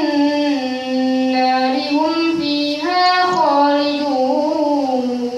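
A boy reciting the Quran from memory in a melodic chant, his single voice drawing out long held notes that step down and back up in pitch.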